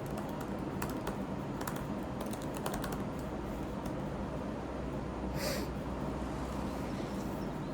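Typing on a computer keyboard: scattered key clicks, most of them in the first three seconds, over a steady low room hum. A short hiss sounds about five and a half seconds in.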